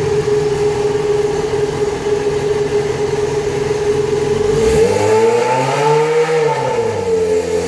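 Yamaha XJ6's 600 cc inline-four engine revved hard while stationary, held high with a choppy, stuttering edge as it bounces off the rev limiter. About five seconds in the revs swing up and fall back once.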